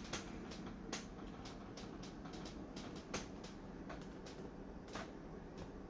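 Faint scattered light clicks and taps, about one or two a second, over a low steady room hum.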